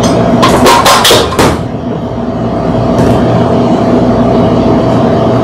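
A few sharp metal knocks and clanks in the first second and a half as the stainless steel bowl is taken off a stand mixer. Under them runs the steady mechanical hum of commercial kitchen ventilation.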